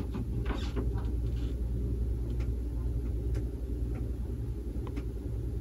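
A steady low hum, with a few faint clicks and taps from fingers handling a hard plastic graded-coin slab.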